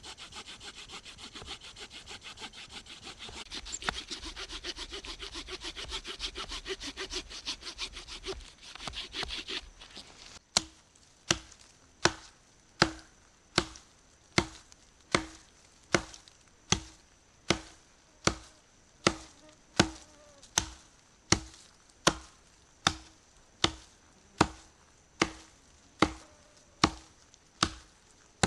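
Hand saw cutting wood with quick back-and-forth strokes for about ten seconds, then an axe chopping into the dry trunk of a dead tree: a steady run of sharp blows, about four every three seconds, each with a short ring.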